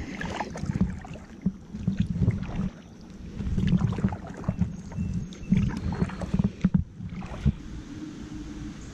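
Kayak paddling: the double-bladed paddle dipping and splashing into the water stroke after stroke, with irregular knocks and drips between strokes.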